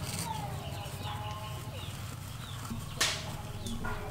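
Birds chirping in short, falling calls over a steady low hum, with a single sharp click about three seconds in and a softer one just before the end.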